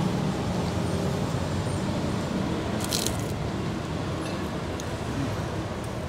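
Steady road traffic noise from passing vehicles, with one short crisp crunch about three seconds in as a kerupuk cracker is bitten.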